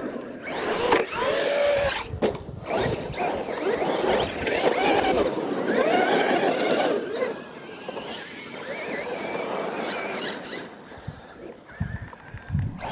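Electric RC monster truck motors and drivetrains whining, the pitch sweeping up and down over and over as the throttle is squeezed and let off. The whine is loudest in the first half and quieter later, with a few low thumps near the end.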